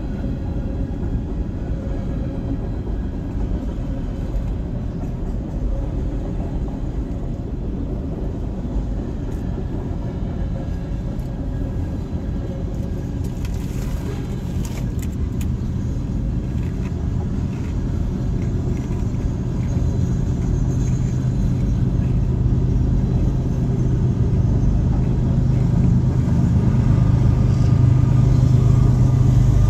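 Freight train cars rolling past a grade crossing, heard from inside a stopped car as a steady low rumble. A low steady hum comes in about two-thirds of the way through and grows louder toward the end.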